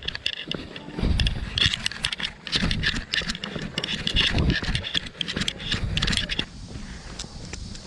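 A trail runner's footsteps crunching on a dirt and gravel trail: quick crunches and clicks with low thumps, which stop about six and a half seconds in, leaving a steady hiss.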